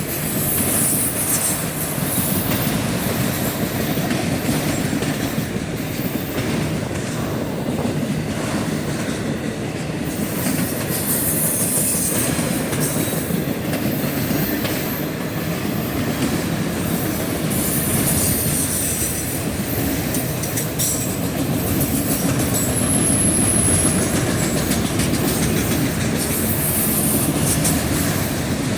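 CSX freight train cars rolling past, wheels clicking over the rail joints in a steady rumble, with brief high-pitched wheel squeals now and then.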